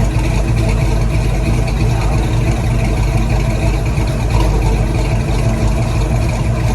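1972 Chevelle SS's V8, running on newly fitted Holley Sniper throttle-body fuel injection, idling steadily and loudly.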